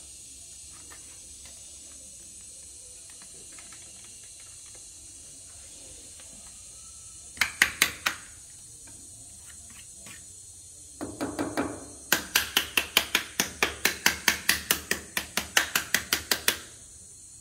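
Ratchet-like plastic clicking from a Ricoh type 1027 drum/developer unit being worked by hand. A short group of four clicks comes about halfway through, then a brief scrape, then a long run of about two dozen evenly spaced clicks, some five a second.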